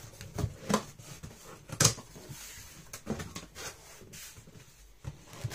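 Cardboard box flaps being pulled open and folded back by hand: a few sharp scrapes and knocks with rustling between them, the loudest about two seconds in.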